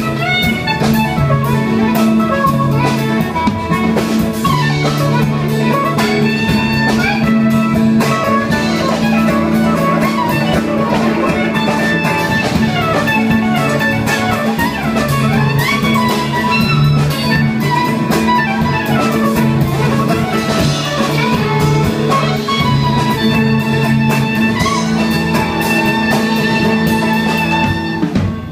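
Live small jazz band playing an instrumental solo of quick running melodic lines over electric bass, drums and chords.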